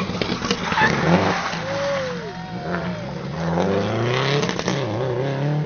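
Rally car engine revving hard and pulling through the gears, its pitch climbing over the last two seconds. Two short high squeals, each rising then falling, come around the middle.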